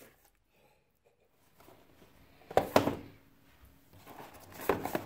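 Package handling: mostly quiet, then two sharp knocks a little past halfway and a few lighter taps near the end, as a box and its contents are handled and set down on a desk.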